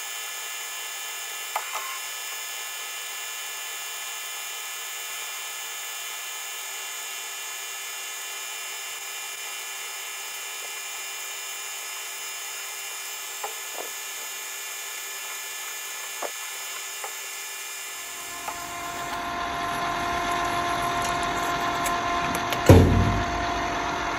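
Metal lathe turning a copper hammer insert: a steady machine whine made of several even tones. About 18 seconds in it grows louder and deeper as the cut goes on. Near the end there is a sharp knock as the parted-off copper insert falls away.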